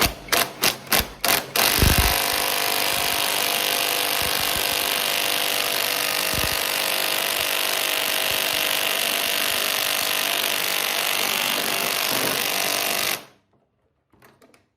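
Impact wrench blipped in about six short bursts, then hammering steadily for about eleven seconds on a seized pedal-assembly bolt, stopping suddenly. The bolt does not break loose.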